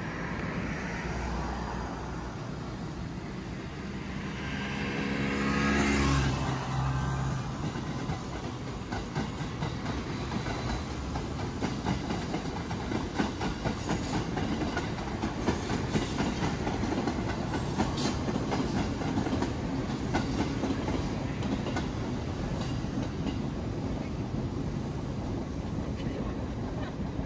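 Train in a railway station, its sound swelling with low steady tones to a peak about six seconds in, then a steady run of rapid small clicks and rumble.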